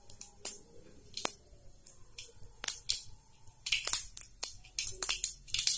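Mustard seeds spluttering in hot oil in a kadai for the tempering of rasam: sharp, scattered pops, a few at first, then coming thick and fast in the last two seconds as the seeds begin to burst in earnest.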